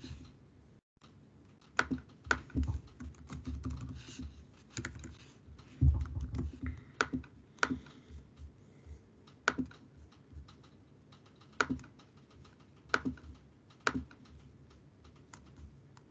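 Computer keyboard being typed on: short runs of key presses, then single clicks every second or two.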